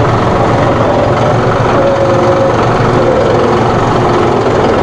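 John Deere 5045E tractor's 2.9-litre three-cylinder diesel engine running steadily under load as the tractor drives in one of its C-range road-speed gears.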